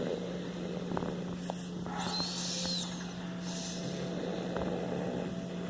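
Baby making soft breathy grunts and vocal noises, with a brief high squeal about two seconds in. A steady low hum runs underneath.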